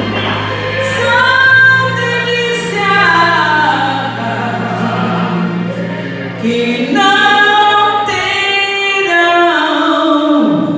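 A woman singing a gospel hymn in long, held phrases over sustained low accompaniment notes.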